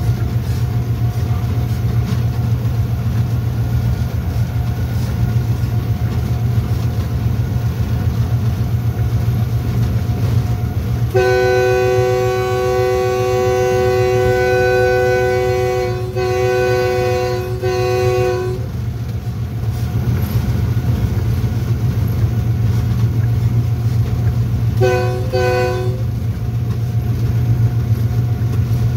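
Pakistan Railways diesel locomotive of the Green Line Express running at speed, heard from its front: a steady deep rumble. Its multi-note air horn sounds a long blast about eleven seconds in, a second blast after a brief break, and two short toots near the end.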